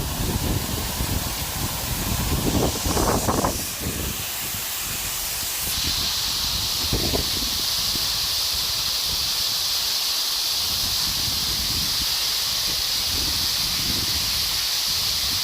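Waterfall rushing as a steady hiss of falling water. For the first few seconds it is mixed with uneven low rumbling, and from about six seconds in the hiss is steady and even.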